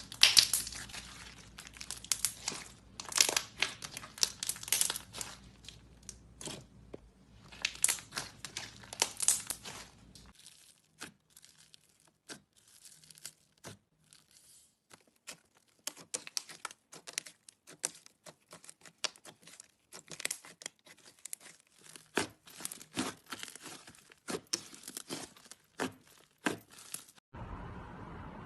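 Slime being squeezed and stretched by hand, giving dense crackling and popping clicks as air pockets burst, sparser for a few seconds midway. Near the end it cuts to a faint steady hiss.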